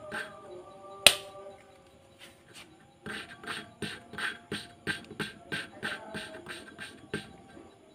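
Engine valve being hand-lapped into its seat with lapping compound: rhythmic gritty rubbing strokes of the valve face on the seat, about three a second. A sharp click about a second in, then a pause of about two seconds before the strokes resume.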